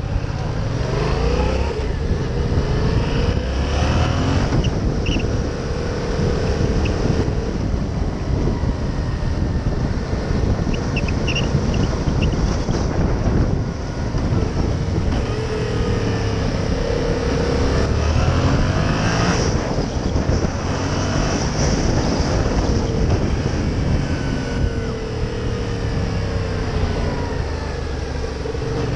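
Yamaha MT-07's parallel-twin engine running on the move, its pitch repeatedly climbing and falling as it accelerates and decelerates through the gears, over steady wind and road noise. A few short high chirps come about five and eleven seconds in.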